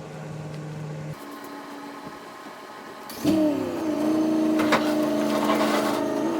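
Electric motor whining in steady stretches, stepping in pitch, then louder from about three seconds in, its pitch dipping and settling as it takes up a load; a single sharp click about halfway through.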